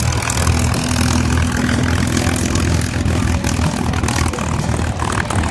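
P-51D Mustang's Packard Merlin V12 engine running at low power as the plane taxis, a steady low drone with propeller noise.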